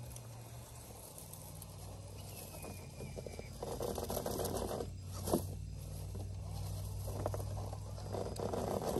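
1:10 scale RC crawler working its way over logs: irregular scrabbling and scraping of tires and chassis on wood, with a sharp knock about five seconds in and a louder scrape at the very end.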